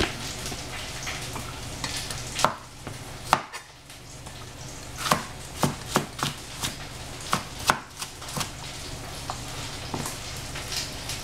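Kitchen knife chopping vegetables: sharp, uneven strokes, sparse at first and then a quicker run of cuts in the middle, over a steady low hum.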